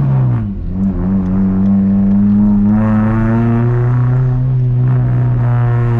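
1999 VW Gol G2's 1.0 8V four-cylinder engine running through a straight-through sport exhaust with a 4-inch HKS muffler while the car is driven. It holds a deep, steady exhaust note at low revs after a brief dip about half a second in.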